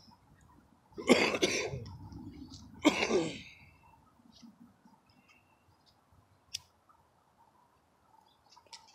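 A person coughing twice, two harsh coughs about two seconds apart, followed by faint scattered ticks.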